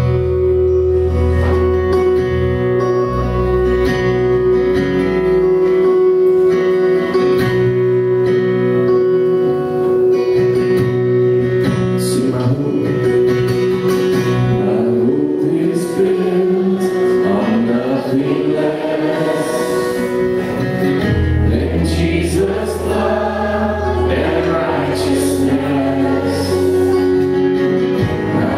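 Live church worship band playing: acoustic guitar and a steady held note over a low bass part, with voices singing a worship song that grows fuller from about halfway in.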